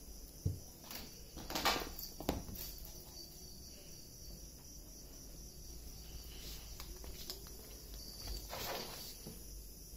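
Quiet indoor room with a faint steady high-pitched whine, broken by a soft thump about half a second in and a few brief rustles and shuffling steps as the phone is carried along.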